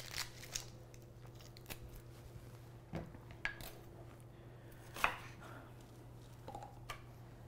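Kitchen knife knocking on a cutting board while slicing a red onion: scattered, irregular knocks, the loudest about five seconds in.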